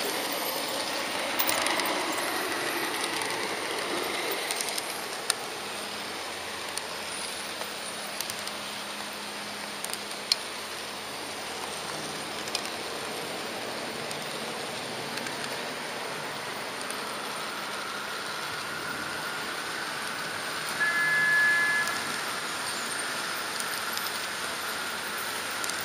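HO-scale model train running along its track, heard from on board: a steady rolling rattle with a few sharp clicks. About 21 seconds in, a brief high tone sounds for about a second.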